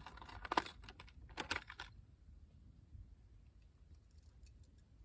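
Small hard objects clicking and rattling, fishing lures being handled while one is picked out of the tackle, in a quick cluster in the first two seconds, then a few faint ticks.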